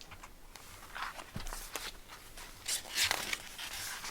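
Soft rustling and brushing of paper, a few short scrapes, as the pages of a picture book are handled and turned.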